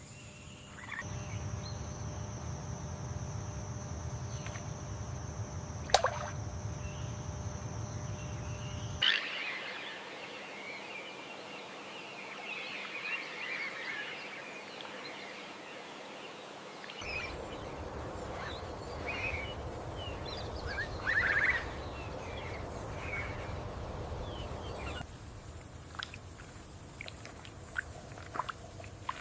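Outdoor wetland ambience with scattered short bird chirps and calls over a steady low rumble. The ambience changes abruptly several times, as at edits, with one sharp click about six seconds in.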